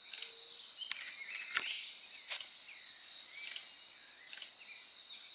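A steady, high-pitched chorus of forest insects, drone-like with regular pulses, with a few short chirps over it. A sharp click stands out about a second and a half in, and a fainter one just before it.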